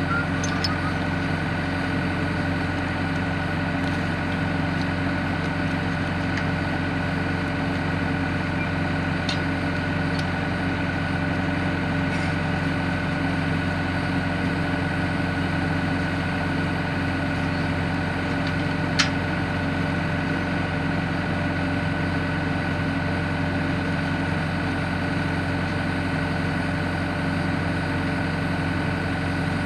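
Backhoe engine idling steadily while a strap is wrapped around a log for lifting. A single sharp metallic click stands out about two-thirds of the way through.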